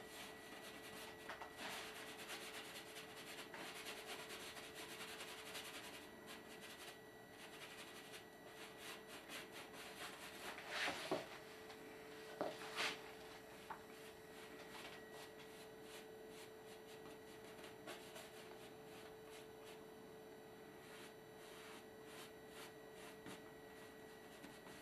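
Bristle paintbrush scrubbing and dabbing paint onto canvas: a faint, dry rasping of many short strokes, with a few louder taps and scrapes around the middle.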